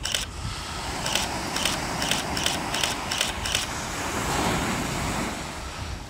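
A quick run of sharp clicks from a phone camera, about two or three a second, over the steady wash of ocean surf and wind on the microphone. A wave washes up on the beach a little past the middle.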